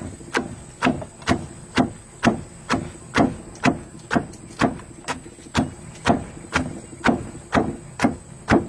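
Wooden pestle pounding sliced eggplant and long beans in a clay mortar, in a steady rhythm of about two strokes a second.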